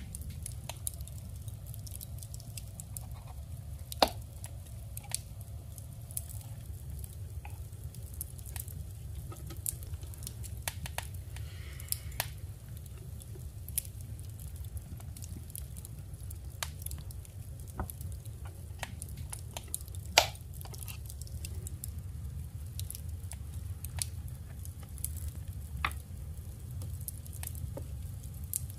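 Paper ephemera and journal materials handled on a desk: scattered light taps, rustles and small clicks, with two sharper taps about 4 and 20 seconds in, over a steady low hum.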